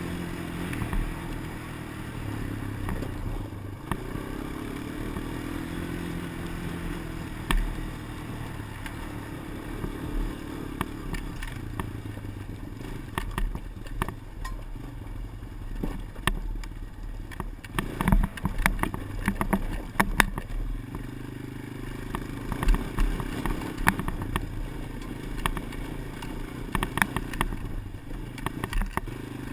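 A small vehicle engine running and changing speed, heard through a GoPro's microphone, with many sharp, irregular clicks over it that come in clusters in the second half. The clicking is the GoPro recording fault that the uploader wants GoPro to look into.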